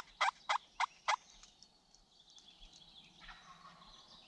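A series of loud, evenly spaced turkey yelps, about three a second, that stops a little over a second in; faint songbird calls go on after it.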